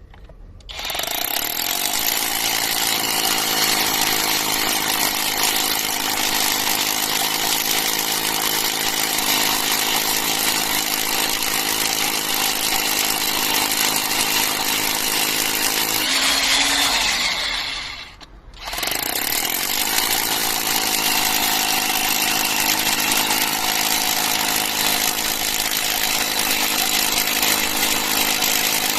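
Cordless brushless rotary hammer (MK-POWER MK-IS-2 on an 18V Makita battery) hammer-drilling into concrete, running steadily after it starts about a second in. About two-thirds of the way through it changes, stops briefly, then starts again and keeps going.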